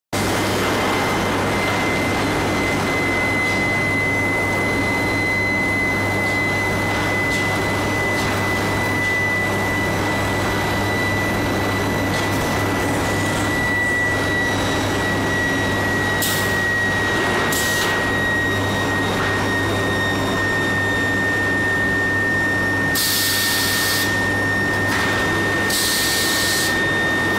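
Steady industrial machinery noise from a hot steel bar heating and roller line: a high-pitched whine that sinks slowly and slightly in pitch over a low electrical hum. Two short bursts of hiss come near the end.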